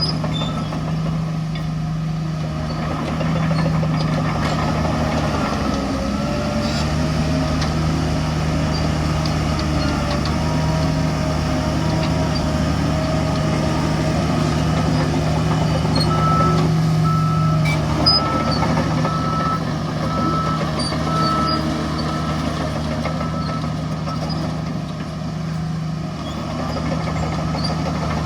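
Heavy diesel machinery, a bulldozer and a dump truck, running steadily. From a little past halfway, a reversing alarm beeps about once every 0.8 seconds for some seven seconds. One sharp knock sounds shortly after the beeping starts.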